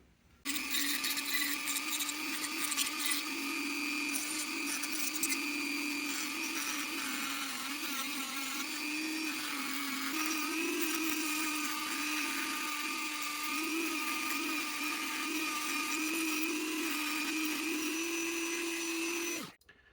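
Handheld rotary tool running at high speed, sanding a carved wooden figurine made from a 2x4: a steady high whine that wavers slightly in pitch as it bears on the wood, starting just after the beginning and cutting off shortly before the end.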